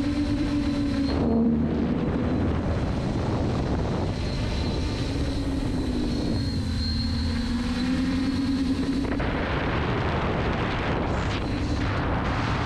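FPV racing drone's electric motors and propellers whining, the pitch rising and falling with throttle, over a steady rush of air noise.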